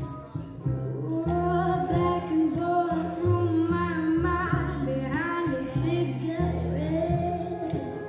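Music with a woman singing a long, wavering melody with vibrato over a bass line that steps from note to note.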